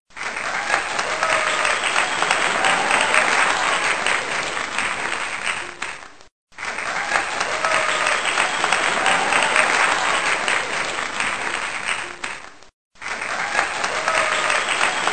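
Crowd applause with some cheering, a six-second clip played three times over with a brief silence between each repeat.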